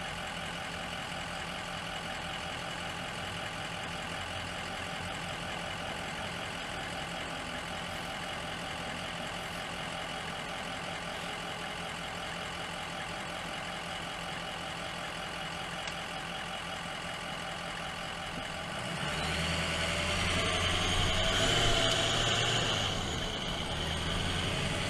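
Vehicle engines idling steadily while stopped in traffic. About 19 seconds in the sound grows louder as traffic starts pulling away.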